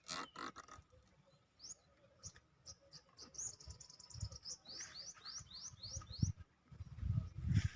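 A small songbird singing: a few spaced high chirps that quicken into a rapid run of notes, then about six quick rising slurred notes. Several dull low thumps near the end.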